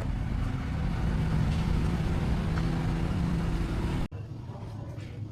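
Small two-stroke engine running steadily, breaking off suddenly about four seconds in.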